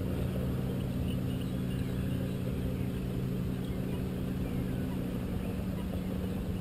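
Motorboat engine running steadily, a low even hum with no change in speed.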